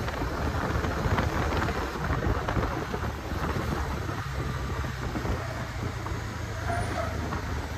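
Wind buffeting the microphone of a moving motorcycle, a dense rumble, with the Bajaj Dominar 250's engine humming steadily underneath.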